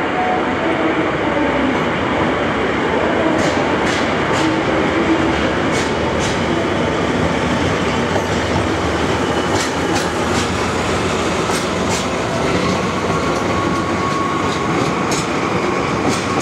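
DE15 Russell snowplough diesel locomotive train passing slowly at close range: a steady, loud rumble of engine and wheels, with scattered sharp clicks of the wheels over rail joints and points.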